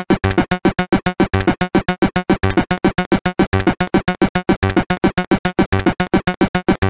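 Electronic synthesizer music from the Pixitracker music tracker, chopped into fast staccato pulses about six a second, with a low note repeating about once a second.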